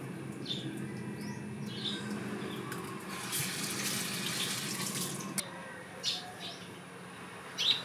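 Kitchen tap running into a steel sink for about two and a half seconds, starting about three seconds in, with short bird chirps before and after it and a sharp clack near the end.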